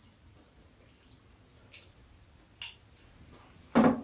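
Quiet eating at a table: a few faint clicks of metal spoons against bowls and a plastic tub, with one louder short clink near the end.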